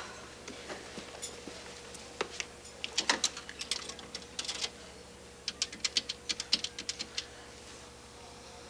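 Payphone being used to place a call: two runs of quick, sharp clicks from its coin slot and buttons, over a faint steady tone.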